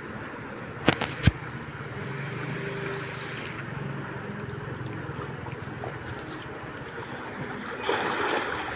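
Cast net thrown over floodwater, its weighted rim splashing down onto the surface near the end. About a second in, two sharp clicks stand out over a steady outdoor background.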